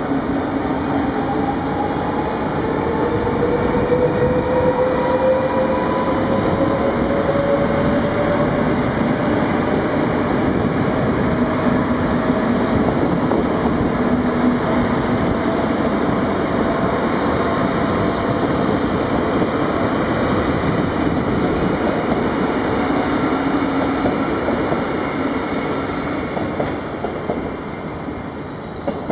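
NS VIRM double-deck electric train moving out past the platform: a steady rumble of wheels on the rails with a rising whine as it picks up speed, fading a little near the end.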